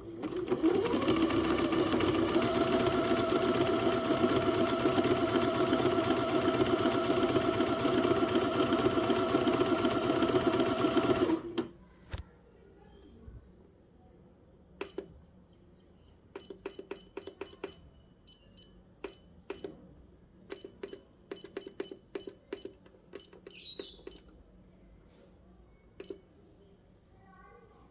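Elna Star sewing machine running steadily at speed for about eleven seconds, then stopping suddenly. It is followed by scattered clicks and short whirs.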